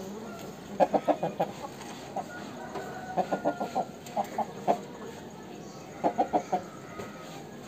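Rooster clucking in quick runs of four or five short notes, several runs a second or two apart, as it pecks at the ground.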